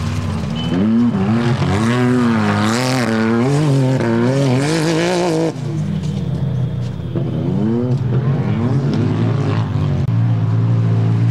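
Off-road racing engine revving hard, its pitch swinging up and down again and again, loudest in the first half, with a second shorter run of revving later, over a steady low engine drone.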